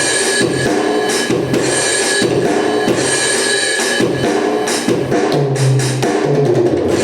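Seven SD-7000 electronic drum kit played along to a backing track through an amplified speaker box: regular drum hits over sustained chords, with a deeper bass note coming in about five seconds in.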